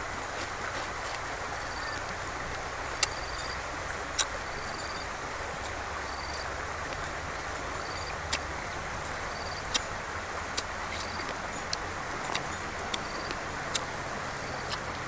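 Sharp cracks of cooked blue crab shell being bitten and chewed, scattered about ten times, the loudest about three and four seconds in, over a steady outdoor hiss with a faint high chirp repeating about once a second.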